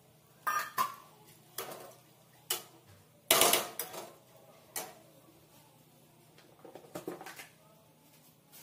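Metal ladle knocking and scraping against the side of a pressure cooker pot while stirring rice and dal into liquid: a string of sharp clinks, with the loudest, longest clatter a little over three seconds in and a short cluster of clinks near the end.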